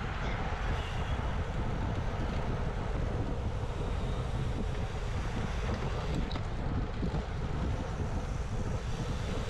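Steady wind rush buffeting the microphone of a camera on a racing bicycle riding in a pack at about 30 to 35 km/h.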